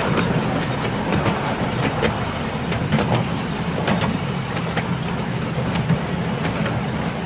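7¼-inch gauge miniature railway train running along the track, heard from a passenger car: a steady low drone from the small diesel locomotive with frequent irregular clicks and rattles from the wheels on the rails.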